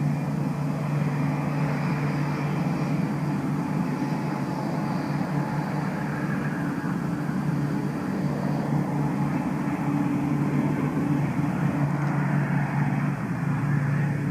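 Steady engine hum with a broad rushing noise, holding even throughout, then dropping away suddenly at the very end.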